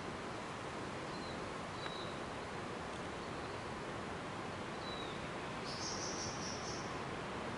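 Quiet forest background with a steady hiss, a few short, high falling whistles of small forest birds, and a high buzzy sound about six seconds in. The stag does not roar.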